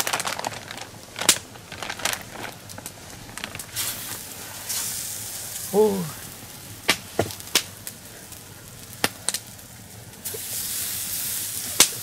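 Raw meat being handled out of a plastic bag and laid on a wire grill over a wood campfire: scattered sharp clicks and rustles, with stretches of sizzling hiss about five seconds in and again near the end.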